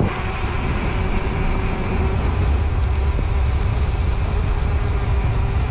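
Wind rushing over the microphone with tyre noise from a mountain bike rolling fast on wet pavement, a steady, loud rumble and hiss.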